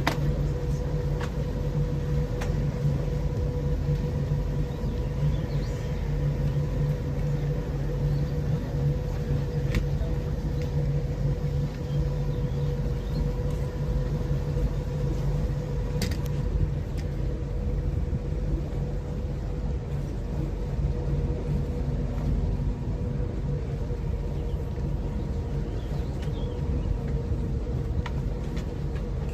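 Boat engine running steadily: a low rumble with a constant hum, and a few faint clicks.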